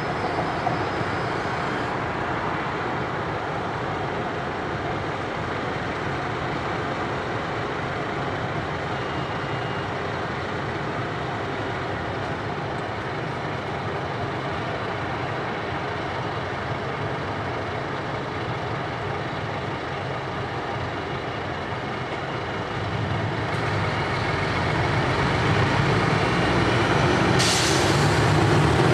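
Steady city street traffic heard from high above: cars, trams and buses going by. It swells over the last few seconds as a city bus draws near, with a short hiss near the end.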